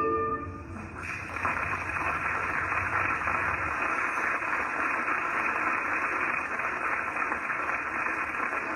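Music cuts off within the first second, giving way to a steady hiss of static with no tones or rhythm in it.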